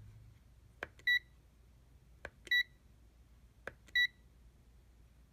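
Kaiweets HT208D clamp meter beeping three times, about a second and a half apart. Each short, high beep comes just after the click of one of its buttons being pressed as it steps through modes.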